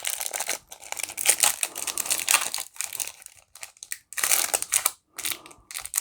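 Panini Adrenalyn trading-card pack wrapper crinkling and tearing as it is worked open by hand, in irregular bursts with short pauses. The pack resists opening.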